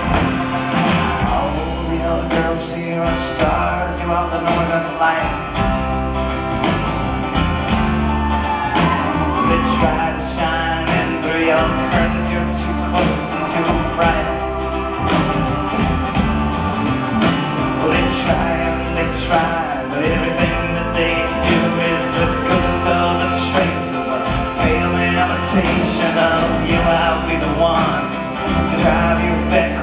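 Live band music: a man singing with acoustic guitar, backed by drums and a band.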